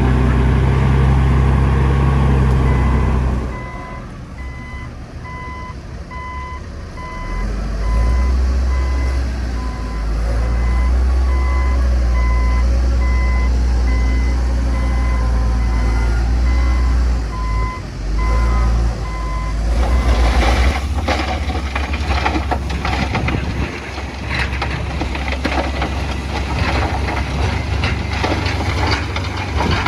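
A heavy diesel dump truck runs, then backs up with its reversing alarm beeping about twice a second over the engine drone. The beeping stops about two-thirds of the way in, giving way to a dense, irregular clatter of knocks.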